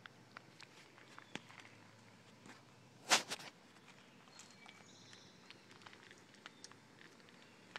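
Camera handled up close: scattered light clicks and knocks, and one loud rubbing burst lasting under half a second about three seconds in.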